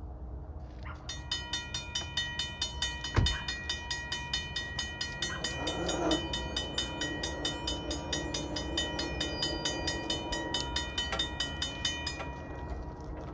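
Safetran mechanical railroad-crossing bell ringing in rapid, even strokes as the crossing signals activate. It starts about a second in and stops about twelve seconds in, once the gates are down. A single sharp knock sounds about three seconds in.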